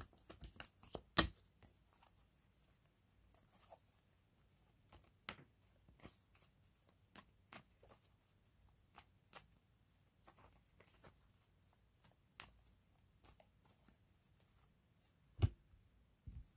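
Tarot cards being handled and shuffled: scattered faint snaps and taps of card on card, with a louder knock about a second in and another near the end.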